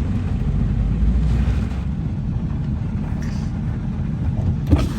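Steady low rumble of a running vehicle, with one short knock near the end.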